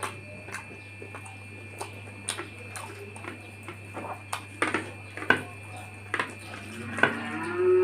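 Close-up eating sounds: fingers mixing rice and pork curry on a plate, with short wet clicks and smacks. A low drawn-out call rising in pitch begins near the end.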